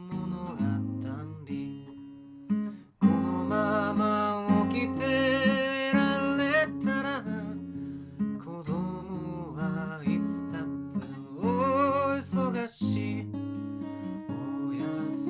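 Acoustic guitar strummed and picked in a slow, gentle accompaniment, with a brief break about three seconds in before the chords come back strongly.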